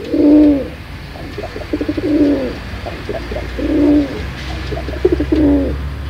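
Domestic pigeon cooing: four rolling coos about a second and a half apart, each led in by a quick run of short notes, over a low steady hum.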